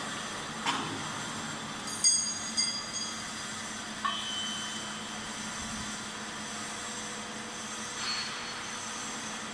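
Steady hiss and hum of an automatic two-torch TIG welding setup running a circular seam, with a faint high whine over it. A few sharp clicks, the loudest about two seconds in and smaller ones near four and eight seconds.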